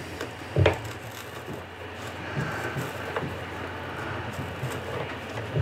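A drill bit boring through the RC plane's fuel hatch into a hardwood mounting block, a steady drilling noise, with one sharp knock about half a second in.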